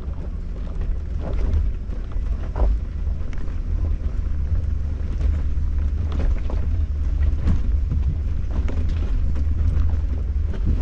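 Open-top Jeep driving slowly over a rocky trail: a heavy low rumble of wind buffeting the microphone and vehicle noise, with scattered short knocks and crunches from rocks under the tyres.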